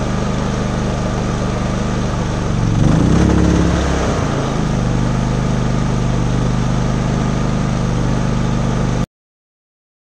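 Westinghouse inverter generator running steadily, then its engine speeds up and gets louder for about two seconds from about two and a half seconds in as it picks up the startup load of a rooftop air conditioner fitted with a SoftStartRV SSRV3T soft starter, before settling into a steady, heavier run under load.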